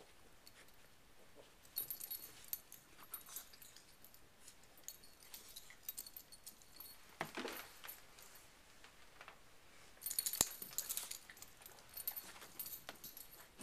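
Two small Chihuahua-mix dogs play-wrestling, their collar tags jingling in light clinking bursts, with one short dog vocal sound about seven seconds in.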